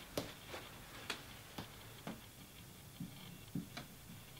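Dry-erase marker writing on a whiteboard: a string of faint, short taps and strokes, about eight in all, spread unevenly.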